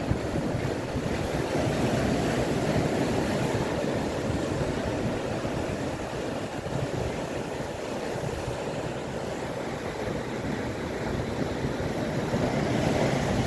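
Ocean surf washing over a rocky shore: a steady rushing that swells as waves break, louder near the start and again near the end, with wind rumbling on the microphone.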